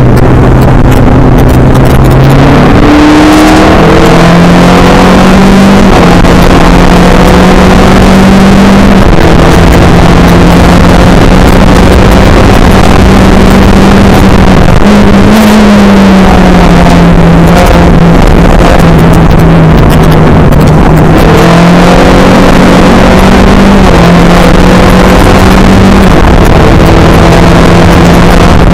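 Skip Barber race car engine running loud and close, with a lower steady note that climbs sharply about two and a half seconds in. It then holds at high revs with repeated small rises and dips in pitch as the car is driven at race pace.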